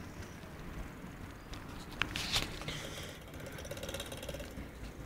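Bicycle freewheel ticking: a fast, even clicking as the bike rolls without being pedalled, setting in about three seconds in after a couple of light knocks.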